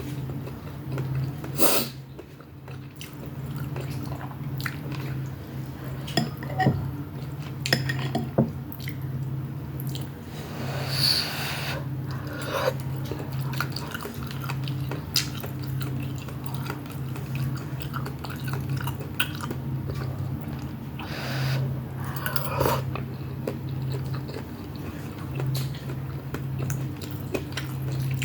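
Close-up eating sounds of Shanghai noodles with beef: wet chewing, with scattered clicks of utensils against dishes and a few short louder bursts, over a steady low hum.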